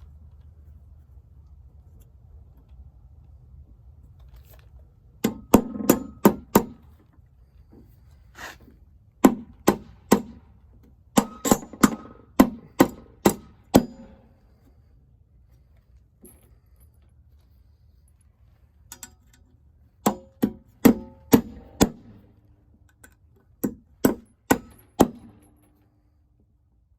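Hammer driving nails into wooden stair stringers, in five bursts of rapid blows at about three to four a second, with pauses between them.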